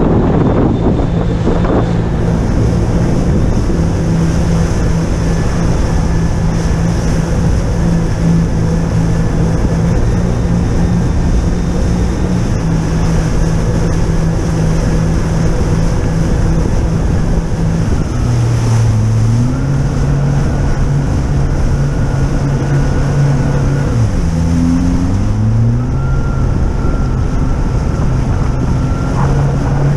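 Jet ski engine running at speed over rushing water, with wind buffeting the microphone. The engine note drops about 18 seconds in, then dips briefly and climbs back a few seconds later as the throttle is eased and reopened.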